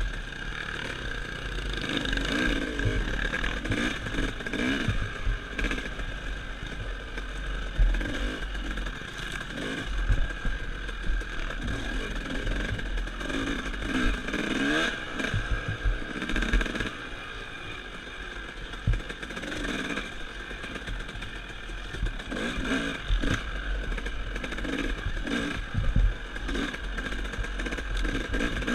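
Dirt bike engine being ridden along a trail, its revs rising and falling repeatedly as the throttle opens and closes. Several sharp knocks and clatter come through over the bumps.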